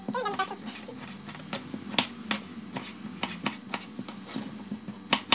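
Kitchen knife chopping tomatoes on a plastic cutting board: irregular sharp taps of the blade striking the board, with softer handling of the cut pieces.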